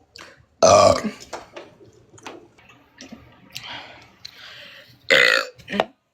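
A woman belching loudly twice: once about half a second in and again near the end, with a short extra burp right after the second. Quieter vocal sounds fall between them.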